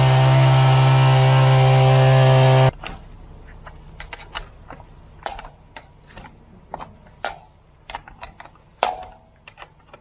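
ScreedDemon vibrating power screed's small gas engine running steadily, cutting off abruptly about two and a half seconds in. Then a scatter of sharp metal clicks and taps as a gloved hand works the fittings on the screed's aluminium frame.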